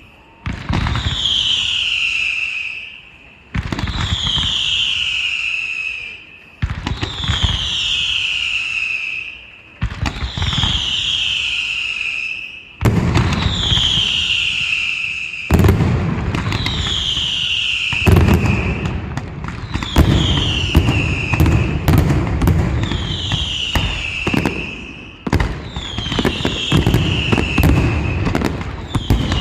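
Fireworks going off in a rapid sequence: about every three seconds a sharp bang, then a whistle falling in pitch. From about halfway on, dense crackling and low booms fill in between the whistles.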